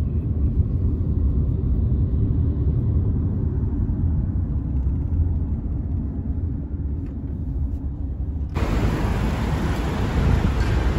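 Steady low road and engine rumble of a moving taxi heard from inside the cabin. About eight and a half seconds in it cuts abruptly to a brighter, hissier street noise outside beside a car.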